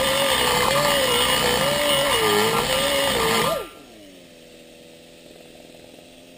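A high-speed rotary grinder with a greased carbide bit cutting into the aluminium of a cylinder head's exhaust port, its whine wavering in pitch as the bit is pressed in and eased off. About three and a half seconds in it is lifted out and switched off, the pitch falling as it spins down and leaving a fainter steady hum.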